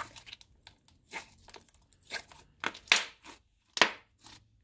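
Thick clay slime being squeezed, folded and pressed by hand, giving irregular crackly pops and tearing sounds, with a few louder pops in the second half. The slime is a little overactivated, so it tears rather than stretches.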